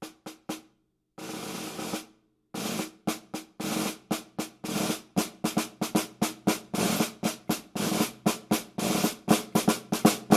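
Ludwig Black Magic snare drum with an Earthtone calfskin head played solo. A few single strokes, then a roll of about a second, then a steady run of strokes and short rolls that grows denser, with the drum's ring sounding under each stroke.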